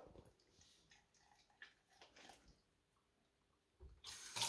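Faint, sparse handling sounds of a perch's innards being worked out by hand. About four seconds in, a kitchen tap is turned on and water starts running into a steel sink.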